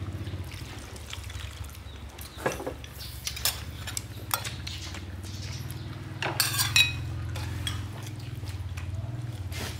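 Metal soup ladle clinking against a metal pot and a glass serving bowl as soup is ladled out, a handful of sharp clinks with the loudest, briefly ringing ones between about six and seven seconds in. A steady low hum runs underneath.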